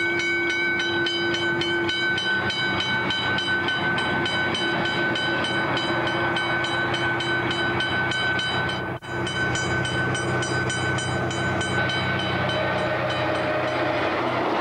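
Diesel locomotives running under power as a train approaches and passes close by, a steady low engine drone under a high steady whine and a fast regular ticking. The sound drops out briefly about halfway through.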